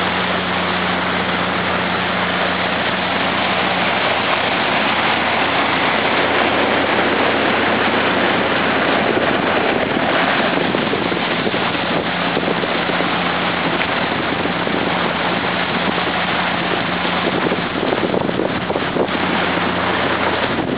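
Motorboat running at speed: a steady engine hum under the loud rush of water and wind. Wind buffets the microphone near the end.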